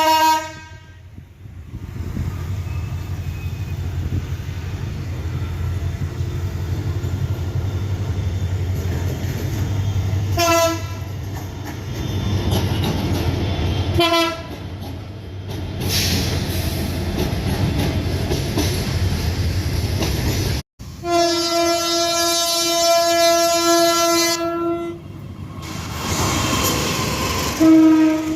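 Diesel locomotive horns sounding in separate recordings, with a hard cut between them. First comes a low train rumble with two short horn blasts about ten and fourteen seconds in. After the cut comes one long steady blast of about four seconds, the semboyan 35 horn signal of Indonesian railways, and another blast begins near the end.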